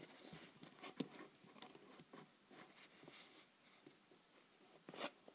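Faint small clicks and scratches of plastic Lego pieces being handled and pressed onto a build, with a somewhat louder short click near the end.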